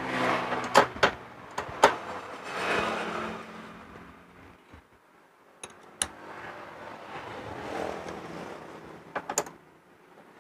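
Sharp metallic clacks and scraping as a clutch-holder tool and a T-handle socket wrench are fitted onto the scooter's CVT clutch housing to undo its nut. The clacks come singly or in quick pairs, several times.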